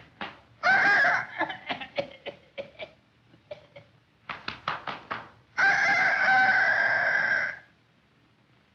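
Chicken-style clucking and cackling: a run of short clucks broken by two long squawks, the second lasting about two seconds, like a hen cackling over a laid egg.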